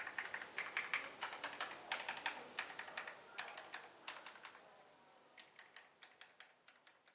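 Typing on an Epomaker TH96 gasket-mounted mechanical keyboard: rapid keystroke clacks in quick bursts, growing steadily fainter toward the end.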